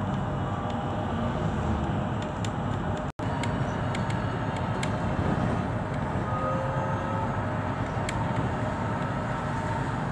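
Cabin noise inside a moving electric bus: a steady low road and tyre rumble with faint whining tones that drift slightly in pitch, and scattered clicks and rattles from the bus's fittings. The sound cuts out for an instant about three seconds in.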